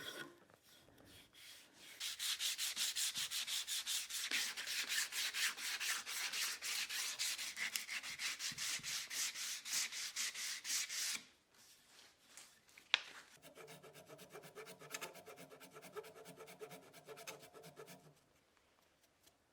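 Sandpaper rubbing over a hickory hammer handle in quick back-and-forth strokes, about five a second, to round the edges over. A quieter second spell of strokes follows a sharp click, with a low steady hum under it.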